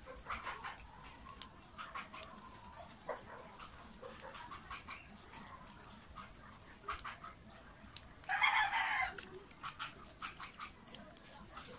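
Small clicks and taps of a planer armature and its parts being handled on a work surface, with a brief, louder animal cry in the background about eight seconds in.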